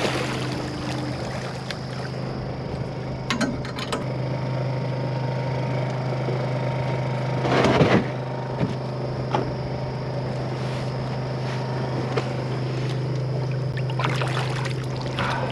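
Steady low hum of a boat motor, with a few sharp clicks about three seconds in, a short loud rush of noise about eight seconds in, and water sloshing near the end as a hand goes into the water.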